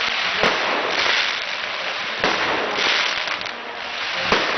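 Aerial fireworks going off: three sharp bangs about two seconds apart, over a continuous hiss and crackle that swells between them.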